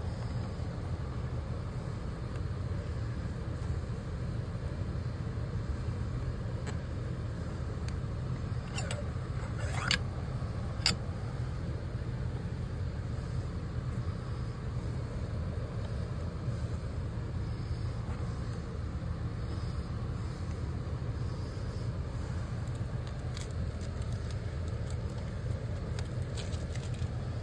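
Steady low rumble, with a few sharp clicks about nine to eleven seconds in and fainter ticks near the end as a metal hose bib is handled and pressed against house siding.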